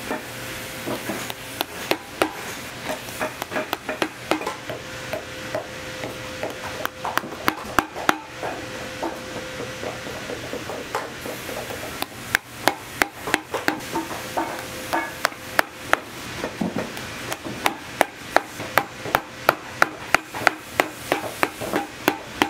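Hammer tapping on boot leather and sole: scattered knocks at first, then a quick, steady run of about three taps a second through the second half. A steady hum runs under it and stops about two-thirds of the way through.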